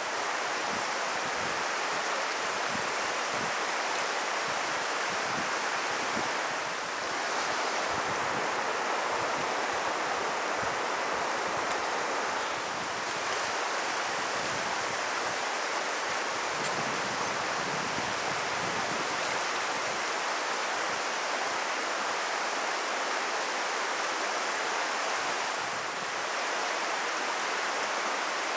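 Steady rush of flowing water, an even, unbroken noise without the rise and fall of waves.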